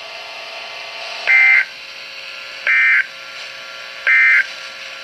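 Emergency Alert System end-of-message (EOM) code: three short, identical buzzy data bursts about a second and a half apart, signalling that the warning broadcast is over. They sound over a steady radio hiss.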